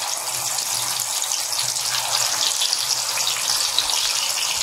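Masala-coated trevally (paarai) fish pieces deep-frying in hot oil, freshly added: a steady sizzle of bubbling oil with fine crackling.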